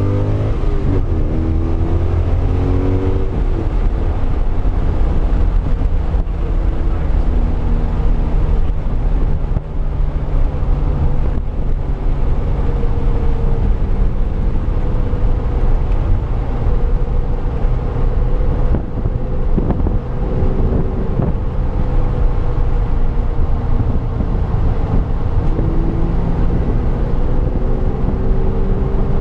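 2005 Pontiac GTO's LS2 V8 running hard at track speed, its pitch shifting in the first couple of seconds and then holding fairly steady with small rises and falls, with wind noise on the microphone.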